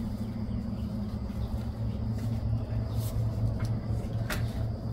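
Paint roller on an extension pole rolling over a concrete floor, under a steady low mechanical hum, with a few short sharp clicks about halfway through and again a little later.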